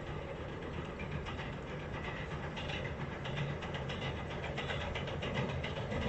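Sanyo Electric Railway local train crossing a steel railway bridge, heard from a distance: a steady low rumble, with a rapid run of wheel clacks on the rail joints from about halfway through.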